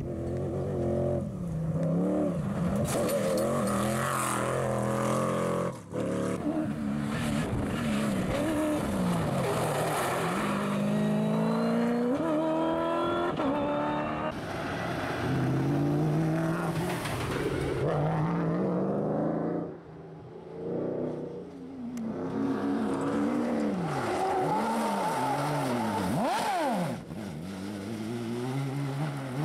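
Rally cars' engines revving hard on dirt stages, the pitch climbing and dropping again and again through gear changes and passes. The sound jumps abruptly several times as it moves from one car to another.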